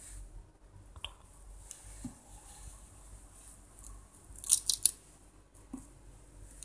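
Hook-and-loop (Velcro) strap of an LED fishing glove being pulled apart: a quick run of three or four sharp rasps about four and a half seconds in, with a few light handling knocks before and after.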